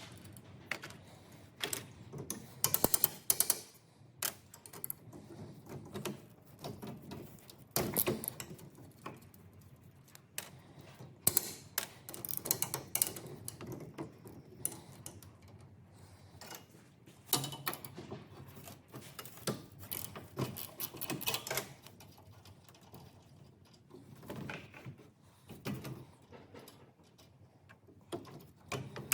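Impact wrench hammering in short bursts on the bolts of a combine grain head's knife assembly, mixed with clinks and clanks of tools and metal parts. The loudest burst is a rapid run of strokes about three seconds in.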